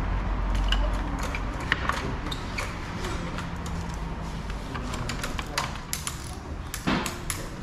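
Scattered light clicks and taps of a metal hand tool against the plastic fairing parts of a motorcycle being assembled, with one louder knock near the end.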